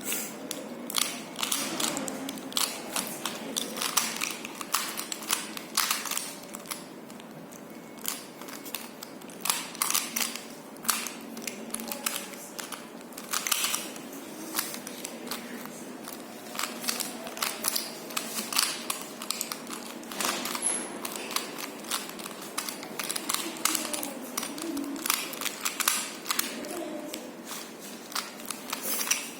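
Rubik's cube being turned quickly by hand: a rapid, irregular run of plastic clicks and clacks as the layers snap round.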